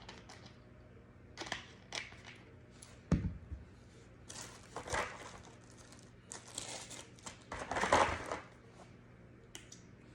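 Handling noises from pistol cleaning: intermittent rustling and crinkling, as of a cleaning cloth or paper being worked, with one dull knock a little after three seconds in, as of a part being set down.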